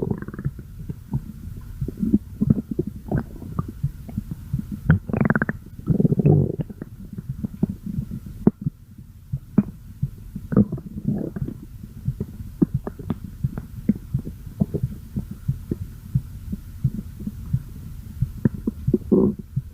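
Human stomach growling and gurgling: a constant run of short bubbling pops, broken by longer, louder rumbles about five and six seconds in and again near the end.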